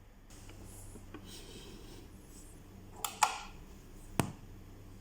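A monitor speaker's stiff push-button power switch being pressed: three sharp clicks about three, three and a quarter, and four and a quarter seconds in, over a low steady hum.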